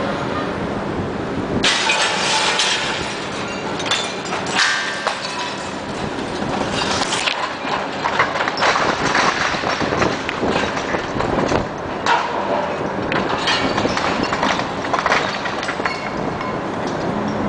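Bricks and masonry breaking loose and clattering down in repeated irregular crashes as a John Deere 450 knocks a brick wall down with a pole, over a constant background rumble.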